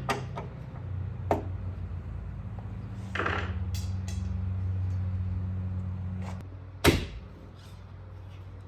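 Scattered clicks and knocks of hand work fastening a side mirror to a steel car door with sheet metal screws, with one sharp click about seven seconds in. A steady low hum runs underneath.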